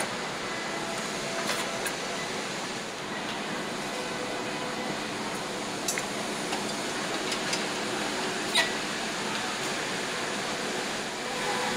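Steady machinery hum on an engine production line, with a few light metallic clicks and one sharper clank about eight and a half seconds in.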